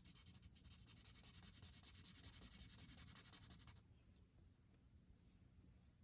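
Colouring tool scratching quickly back and forth across paper in rapid, even strokes, stopping about four seconds in, with a few lighter strokes after.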